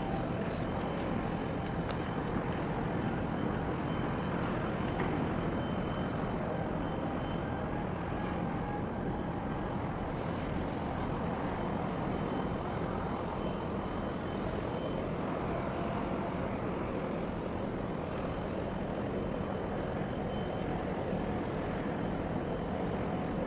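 Steady distant engine rumble with a faint high-pitched whine running through it, and a few faint clicks about a second in.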